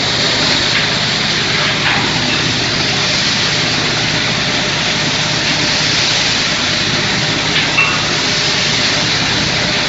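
Sawdust rotary drying line running, its centrifugal blower fan and ducts giving a steady, loud rush of air, with a brief tick about eight seconds in.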